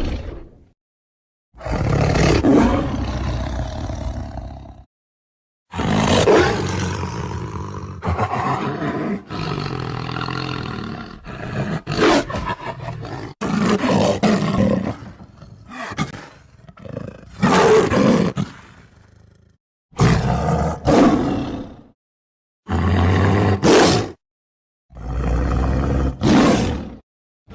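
Tiger roaring again and again: about eight loud roars, each lasting one to four seconds, separated by short silences.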